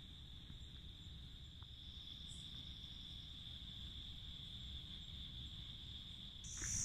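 Steady, faint high-pitched chirring of night insects such as crickets, with a low rumble underneath. Near the end a louder, higher-pitched insect drone sets in.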